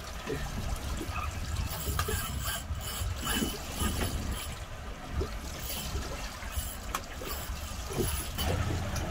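Steady low rumble of a fishing boat's engine at sea, with water washing against the hull and a few short knocks.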